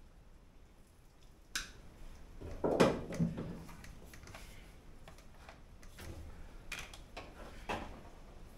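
Hand tools and small metal parts clicking and knocking against the inner panel of a Toyota Corolla KE20's door as its fittings are worked on by hand. A sharp click comes about one and a half seconds in, then a louder cluster of knocks around three seconds in, then a few lighter clicks.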